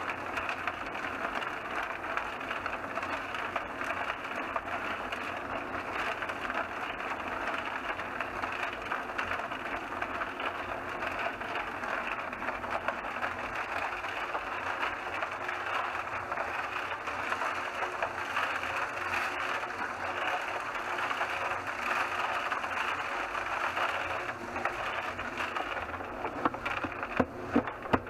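Homemade cement mixer built from a 55-gallon steel drum, running steadily: its motor and drive turn the drum with a continuous rattling clatter. A few sharp knocks come near the end.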